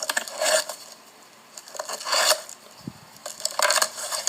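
Cardboard shipping box being opened by hand: three short scraping, rasping strokes as the tape and flaps are worked.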